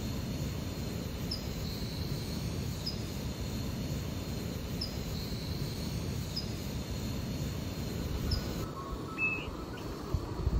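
Outdoor background noise: a steady low rumble with a faint high chirp repeating about once a second, changing near the end to a single short chirp.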